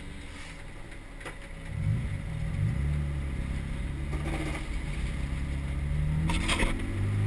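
BMW E30's engine heard on board, running low and then picking up revs about two seconds in and holding steady, with a few short knocks near the end.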